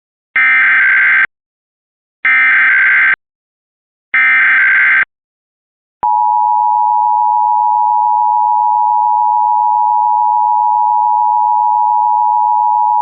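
Emergency Alert System test: three one-second bursts of SAME header data, a harsh digital warble of two alternating tones, with short silences between them. About six seconds in, the steady two-tone EAS attention signal starts and holds on.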